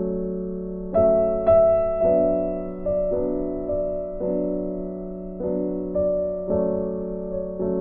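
Background music: soft piano or electric piano playing chords at a slow, even pace, each note struck and fading.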